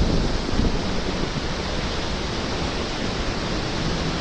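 Steady rushing roar of a waterfall in heavy flow, with a deep low rumble underneath.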